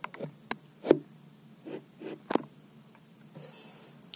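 Quiet room with several short, sharp clicks and taps in the first two and a half seconds, then faint hiss.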